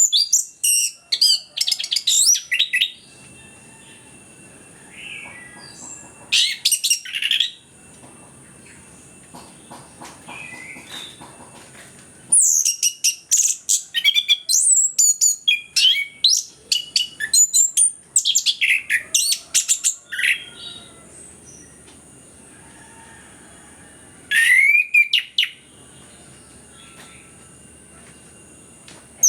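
Orange-headed thrush singing in loud bouts of rapid, varied, gliding high phrases, with short pauses between bouts and one long stretch of song in the middle. A steady faint high-pitched hiss runs behind it.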